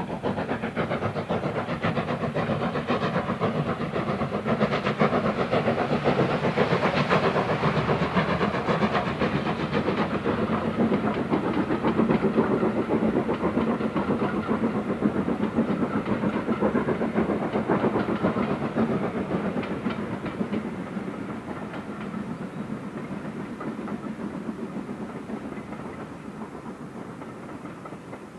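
LSWR S15 No. 506, a two-cylinder 4-6-0 steam locomotive, passing under steam with its exhaust beating, followed by its coaches rolling by with wheel clickety-clack. The sound fades away over the last several seconds.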